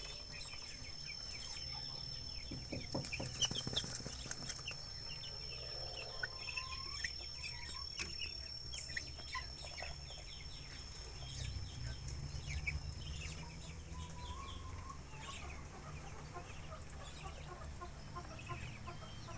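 Backyard native chickens clucking, with many short calls scattered through. A few sharp clicks come about three to four seconds in.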